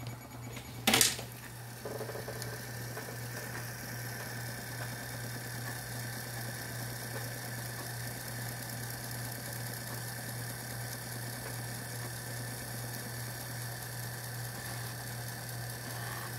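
Opened 5.25-inch floppy drive running as it reads and copies a file off a floppy disk whose protective jacket has been cut away: a steady whirring mechanical hum with a thin high tone over it. A single sharp click comes about a second in.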